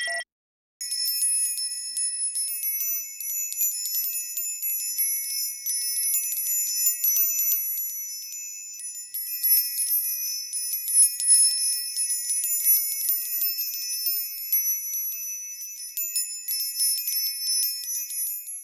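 Wind chimes ringing: many high-pitched metal strikes overlapping without pause. They start about a second in and stop abruptly at the end.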